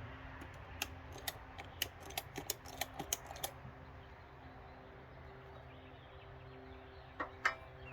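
A quick run of light, irregular clicks and taps, about a dozen over three seconds, then two more near the end.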